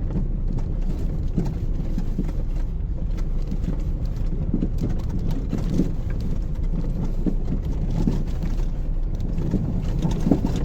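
Car interior road noise on a dirt road: a steady low rumble of tyres and suspension with scattered small knocks. Near the end comes a little shudder, a slight metallic bottoming-out clunk from the engine bay, which the owner suspects is a worn engine mount.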